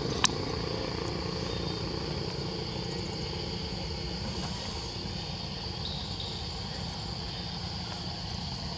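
Steady outdoor background: a low rumble with a high, even insect drone over it, and one sharp click about a quarter second in.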